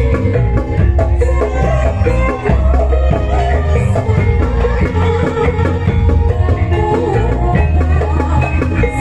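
Loud Javanese barongan accompaniment music, gamelan-style: a pounding hand drum under steady pitched melody lines.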